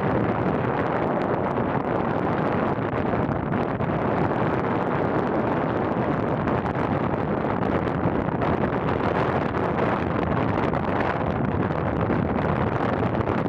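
Steady driving noise of a vehicle moving along an asphalt road: a constant rush of tyre, engine and wind noise with no changes.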